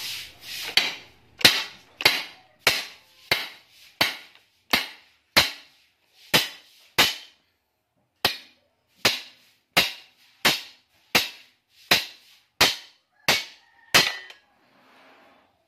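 Repeated hammer blows on the old welding machine, about one and a half strikes a second with a short pause about halfway, as it is broken apart to get at its copper windings.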